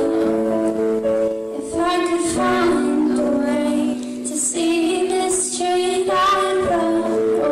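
A teenage girl singing a song live, with long held notes.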